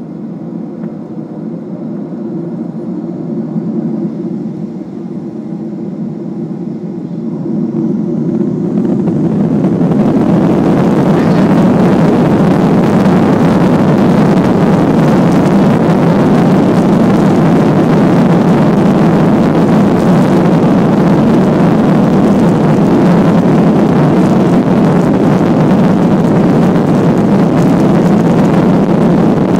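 Boeing 737-800's CFM56 turbofan engines heard from inside the cabin: a moderate steady hum, then about eight seconds in the engines spool up to takeoff thrust. A loud, steady roar holds through the takeoff run.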